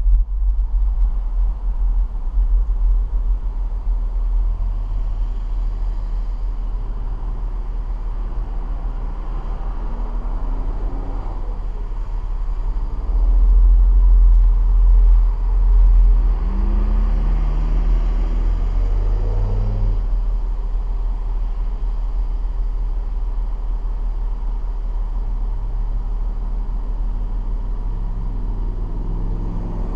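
Car driving along a highway: a steady low rumble of road and engine noise. The engine's pitch rises and falls in the middle, with a louder swell about 13 to 16 seconds in.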